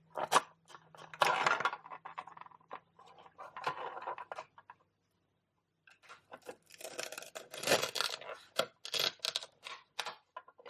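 Velcro-joined pretend food corn being cut apart with a toy knife: a series of short velcro rips as the pieces separate, mixed with clicks and clatter of the toy pieces. The sounds come in irregular bursts, with a pause of about a second midway.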